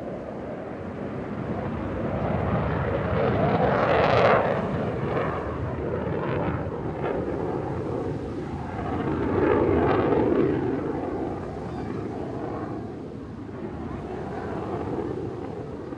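RAF Eurofighter Typhoon's twin jet engines running in afterburner on a display pass, a loud, rumbling jet noise that swells twice, about four seconds in and again around ten seconds, then eases off.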